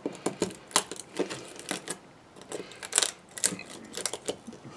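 Hand nippers snipping and snapping PLA support material out of a 3D-printed part: an irregular series of sharp clicks and snaps as the plastic is cut and breaks away.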